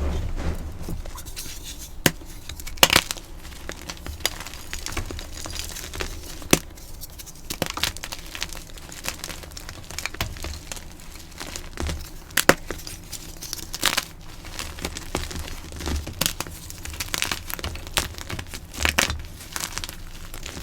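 Blocks of dyed gym chalk being crushed, giving crisp crunches and crumbling with sharp cracks at irregular moments.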